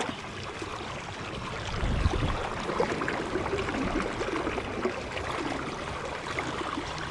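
River current running and gurgling, with a brief low rumble about two seconds in.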